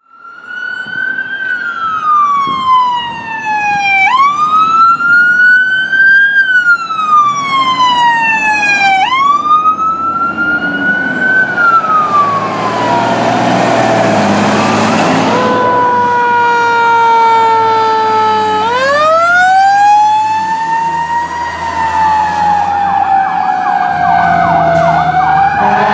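Emergency vehicle sirens from a responding ambulance and fire engine. For about the first twelve seconds an electronic wail rises and falls roughly every five seconds. Around the middle a loud rush of noise breaks in, then a siren winds up and slowly coasts down, typical of a mechanical siren such as a Federal Q, over a low diesel engine rumble.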